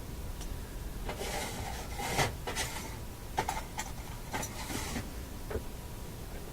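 A faint steady test tone from the radio, with a run of clicks and rubbing noises from about one to five seconds in as the chassis is handled.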